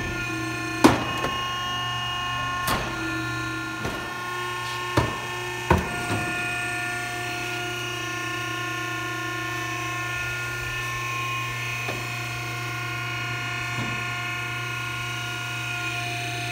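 Cessna O-2A's landing gear retracting on jacks. Its hydraulic pump whines steadily, and the gear legs and doors clunk sharply several times in the first six seconds and a few more times, more faintly, later on.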